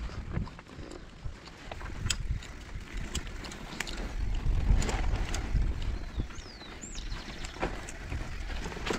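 Giant mountain bike descending a dirt trail: knobby tyres rolling over rough ground with a low rumble, and frequent sharp clicks and rattles from the bike's chain and frame over bumps.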